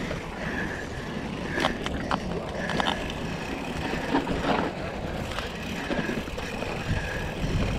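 Mountain bike rolling fast over a rocky dirt trail: steady tyre and wind rumble with several sharp knocks and rattles as the bike hits rocks.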